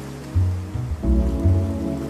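Background music with a strong bass line of held notes that change every half second or so.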